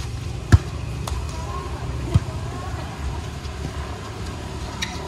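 Volleyball being hit by players' hands and arms during a rally: a sharp smack about half a second in and another about two seconds in, with fainter taps, over a steady low rumble and faint voices.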